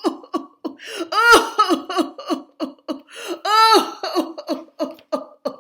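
A woman's voice making a rapid run of short, exaggerated non-speech vocal sounds, about four a second, broken twice by a long 'aah' that rises and falls in pitch.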